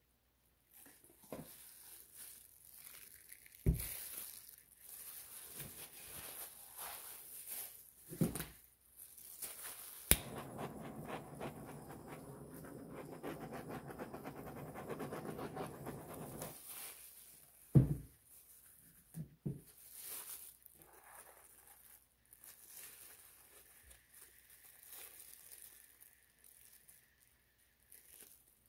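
Small handheld gas torch lit with a sharp click about ten seconds in, then running for about six seconds with a steady, fluttering hiss as it is played over wet poured acrylic paint. Scattered knocks and bumps of paint cups and canvas being handled come before and after, the loudest just after the torch stops.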